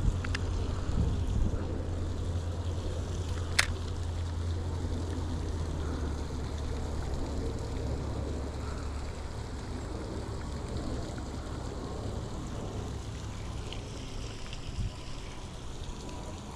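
Steady rush of flowing water with low wind rumble on the microphone, and a single sharp click about three and a half seconds in.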